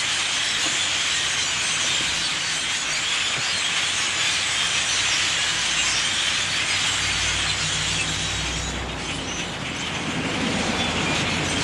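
A large flock of birds in a tree, calling all at once in a dense, steady din.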